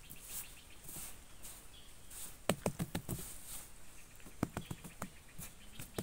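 Hands patting and scraping loose dry soil: a cluster of soft taps about halfway through, and another a couple of seconds later.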